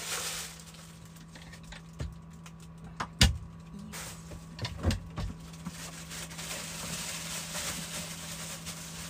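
Plastic bags rustling and crinkling as they are handled and pushed into an overhead cupboard, with a few sharp knocks, the loudest about three seconds in. A steady low hum runs underneath.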